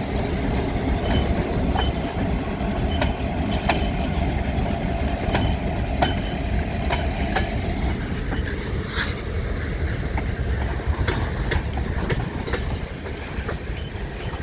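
Freight train rolling past: a steady low rumble of cars with the wheels clicking over rail joints at an uneven half-second to one-second spacing.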